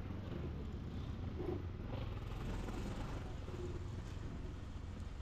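Motorcycle engine running steadily: a low, even rumble.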